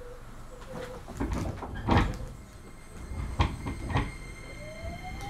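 Inside a Keio 8000 series electric train, the sliding doors shut with a loud thud about two seconds in, followed by a couple of sharper knocks. Near the end the Hitachi SiC inverter's whine starts to rise as the train begins to move off.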